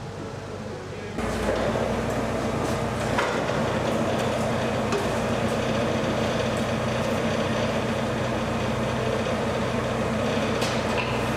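Steady machine noise, a low hum under an even rumble, starting abruptly about a second in, with a few faint knocks and clinks over it.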